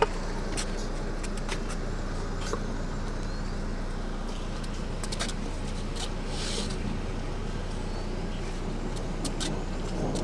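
A vehicle's engine idling steadily as a low hum, with scattered light clicks and knocks and a brief hiss a little past the middle.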